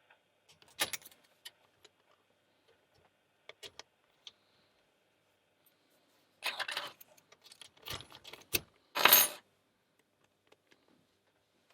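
Metallic clicks and rattles of an American Lock 1100 padlock being handled and worked with lock picks. Scattered sharp clicks come first, then a run of louder metal rattling and clattering from about six and a half to nine and a half seconds in.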